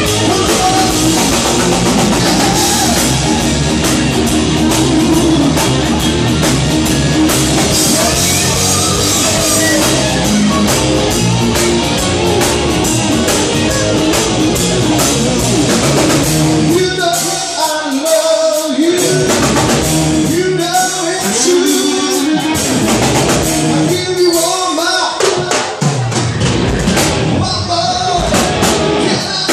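Live rock band playing: a male singer over electric guitars, bass guitar and drum kit. About halfway through, the band breaks into a stop-start passage where the low end drops out in gaps and the voice stands out, and the full band comes back in near the end.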